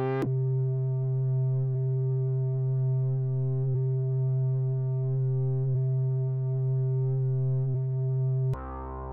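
Kern software synthesizer playing its 'Scream in the Dark' factory preset: one steady, low, buzzy held note rich in overtones, with a faint click about every two seconds. Near the end it cuts over to a different, quieter patch.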